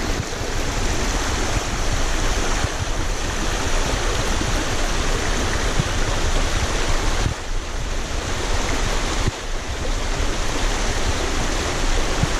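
Steady rushing of running water from a stream, with a low rumble underneath, dipping briefly a few times.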